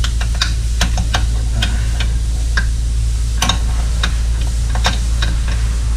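Irregular sharp metallic clicks and taps of hand tools working on a car's rear axle bolts, about two a second, some in quick pairs, over a steady low rumble.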